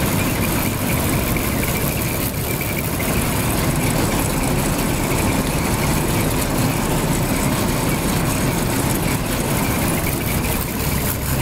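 Claas Matador Gigant combine harvester running steadily, its six-cylinder diesel engine driving the threshing mechanism, with belt pulleys spinning.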